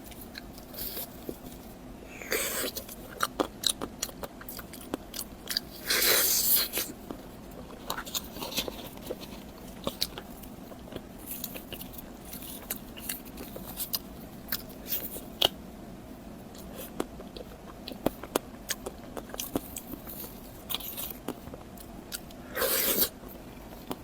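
Close-miked eating: a person chewing and biting, with many small wet mouth clicks and three louder bursts, about two seconds in, about six seconds in, and near the end.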